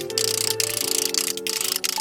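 Background music: held chords that change every half second or so over a quick ticking beat.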